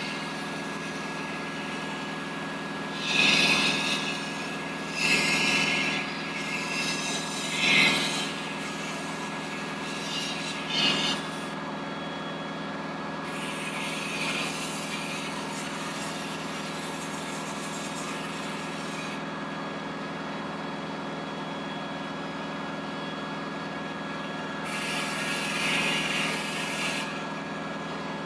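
Steady machine hum with short bursts of hissing, each about a second long, plus one longer, quieter hiss of about six seconds in the middle.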